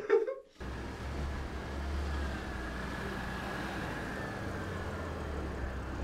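Brief wet kissing noises, then a car engine running steadily with a low rumble, plausibly the black Porsche sedan in the shot idling.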